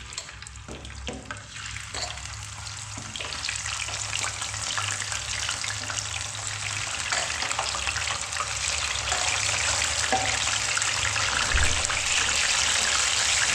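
Fish frying in hot oil: a dense sizzle that grows steadily louder.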